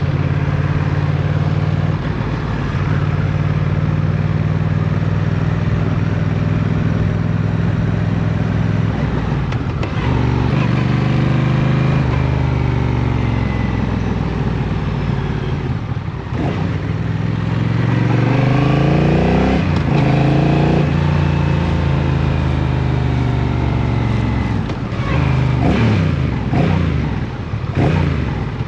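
Honda CMX 1100 Rebel's parallel-twin engine under way. It holds a steady note for the first nine seconds or so, then its pitch falls and climbs several times as it slows and pulls away again. The longest rise comes about two-thirds of the way in, and there are more short rises and drops near the end.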